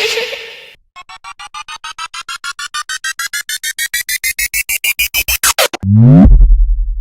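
Synthesized edit sound effect: a rapid train of beeps, about eight a second, climbing steadily in pitch for about five seconds, then a falling swoop into a loud, deep bass boom near the end.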